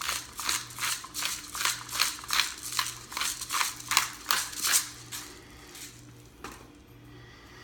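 Pepper grinder being twisted over raw chicken, a quick even run of dry crunching clicks at about four or five a second. The clicks stop about five seconds in, with one more near the end.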